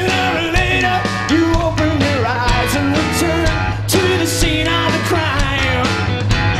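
Rock band playing live, loud and steady: a male lead vocal over electric guitar, bass and a driving drum beat.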